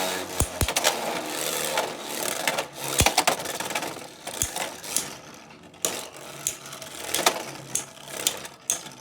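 Two Beyblade spinning tops whirring in a plastic stadium and clashing with sharp clacks, the hardest hits early on and about a third of the way in. The whirr fades as the tops slow down.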